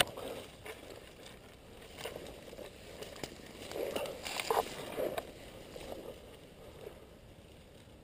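Dry grass, weeds and twigs rustling and crackling as a person pushes through dense undergrowth, in irregular bursts that are loudest about four to five seconds in.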